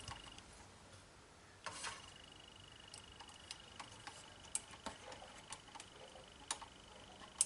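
Faint, scattered small clicks and taps as the plastic and metal parts of a DVD drive's lens pickup mechanism are handled, with a faint steady high whine in the background from about two seconds in.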